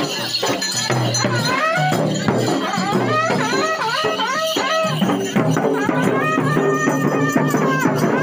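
Traditional folk music: a wind instrument plays a wavering melody full of pitch slides, then holds steadier notes from about halfway, over continuous drumming and jingling rattle or tambourine percussion.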